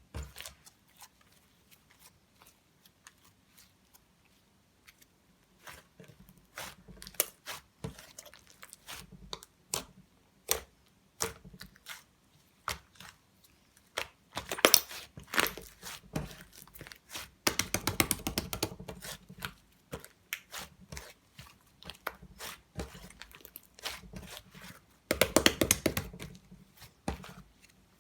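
Hands squishing and stretching slime, making sticky clicks and pops. The pops come thick and crackling in runs about halfway through and again near the end.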